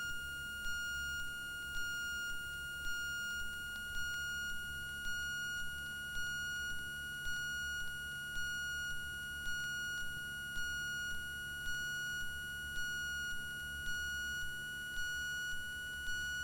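A steady, unbroken high electronic tone with a faint pulse about once a second over a low hum.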